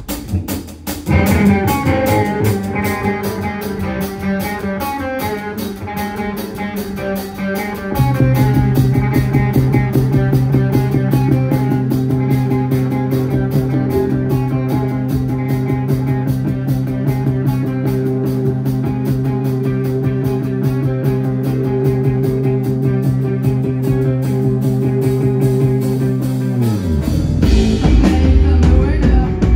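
Live rock band playing an instrumental passage: electric guitars, keyboards and a drum kit keeping a steady, fast beat under held chords. A low held note comes in about eight seconds in and the music gets louder; near the end the held notes slide down in pitch and the band moves into a new section.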